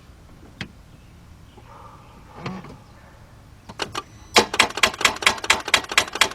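Rapid, even clicking from a 2004 Mercedes-Benz C320's starting circuit, about six clicks a second, as the key is turned to start. The engine does not crank.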